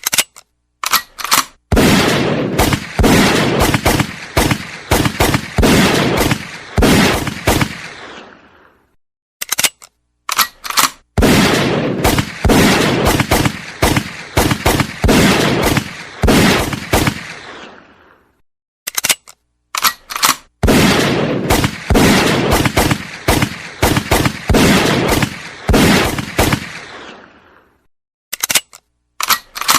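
Gun cocked with a few sharp clicks, then fired in rapid bursts with long echoing tails. The sequence repeats three times, about nine seconds apart.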